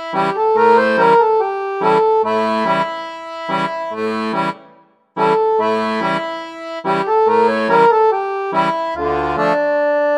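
Channel intro jingle: instrumental music played in short, rhythmic chords, cutting out for a moment about five seconds in.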